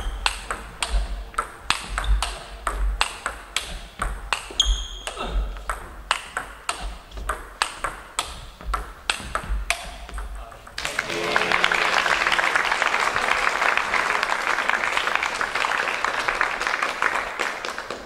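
Table tennis ball clicking off the paddles and the table in a fast rally, with a quick, irregular run of sharp ticks. About eleven seconds in, the rally ends and the crowd applauds for about seven seconds, louder than the ball.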